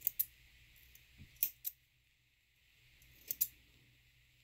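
Thread snips cutting loose thread ends: three pairs of short, sharp snips spread over a few seconds.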